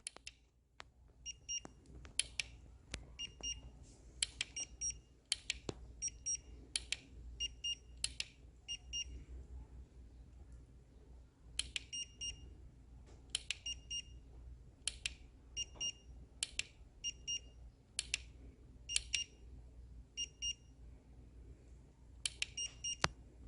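Electronic device giving short, high-pitched beeps, mostly in quick pairs, in irregular groups with sharp clicks, over a steady low hum.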